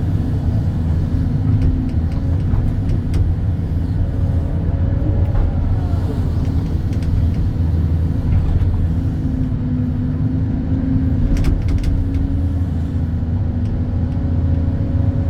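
Excavator's diesel engine running steadily while digging, a loud low rumble with the pitch of its drone shifting a little as the hydraulics work. A few brief clicks or knocks come about eleven seconds in.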